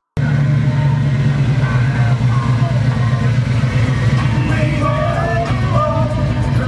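Chevy shortbed pickup's engine running as the truck rolls slowly, a steady low drone that cuts in abruptly just after the start, with music and voices over it.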